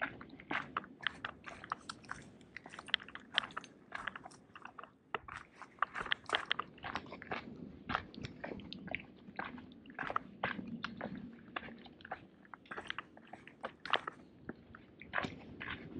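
A GoPro slung on a backpack, rubbing and knocking against the pack with each step, mixed with crunching footsteps on a dry dirt trail: a fast, irregular run of crackly clicks and scrapes.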